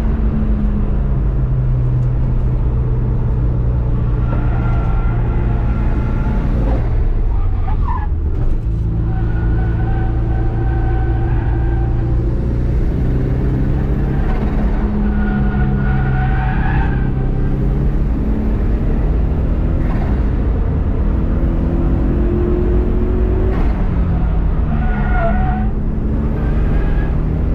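Turbocharged EJ207 2.0-litre flat-four of a GC8 Subaru Impreza running hard on a race track, its revs rising and falling through gear changes, with a short drop about eight seconds in.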